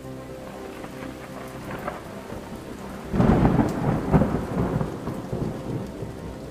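Steady rain with a low hum beneath it, and about three seconds in a sudden loud rumble of thunder that fades over a couple of seconds.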